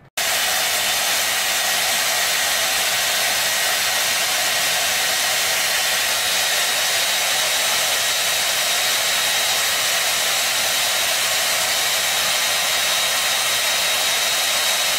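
Handheld hair dryer running steadily: a constant rush of air with a faint high whine.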